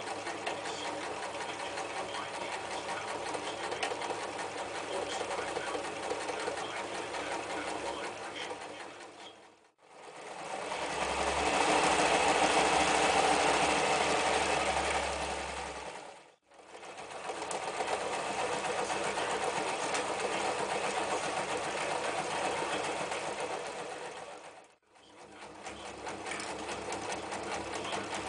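Janome New Home 110 electric sewing machine running steadily, stitching through thick layers of denim and sailcloth. The sound fades out briefly three times, and the stretch in the middle is louder.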